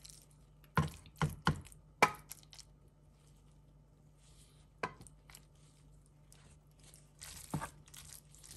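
Serving spoon knocking against a plate and pan while egg noodles are dished up: a few sharp knocks in the first two seconds, another about five seconds in, then a short rustle near the end.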